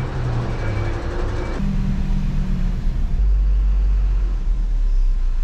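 Vehicle sound heard from inside a car cabin at low speed: a pitched engine note at first, changing about one and a half seconds in, then a steady deep rumble that grows louder about three seconds in.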